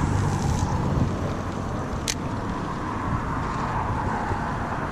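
Steady road traffic noise from cars and trucks on the highway bridge alongside, a continuous outdoor rumble, with one short sharp click about two seconds in.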